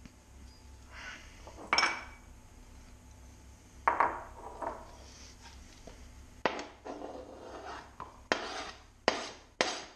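Kitchen clatter of a chef's knife and plastic cutting board as chopped garlic is scraped off the board: a few scattered knocks, then from about two-thirds of the way in a run of sharp taps and clinks about every half second.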